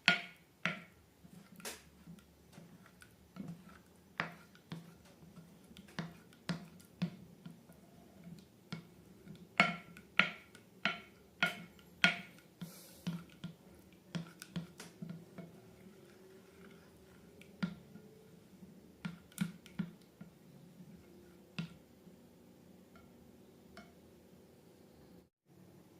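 Slime clicking and popping as it is pressed and worked by hand: irregular sharp clicks, about one or two a second, thinning out near the end.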